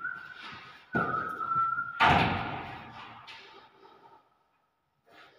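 A newly hung toilet door squeaking with a thin high tone as it swings, then shutting with a loud bang about two seconds in. The bang rings on and fades over the next couple of seconds.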